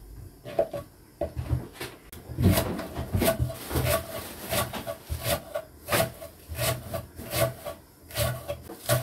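Kitchen knife chopping vegetables on a wooden cutting board: a steady run of slow, even knocks of the blade on the wood, about one and a half strokes a second.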